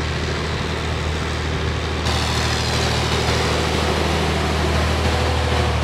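Heavy multi-axle mobile ICBM launcher trucks running their diesel engines, a steady deep drone. About two seconds in it grows a little louder and a high whine joins it.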